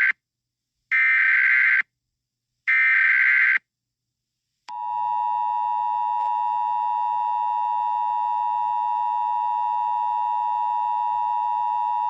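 Emergency Alert System SAME header: three bursts of screechy digital data tones, each just under a second long, the first already under way. After a pause of about a second, the steady two-tone EAS attention signal begins and holds on.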